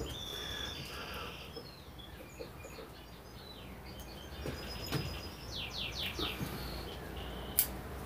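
Small birds chirping in the background, with a quick run of repeated chirps about five and a half seconds in. A few sharp clicks stand out, the clearest near the end.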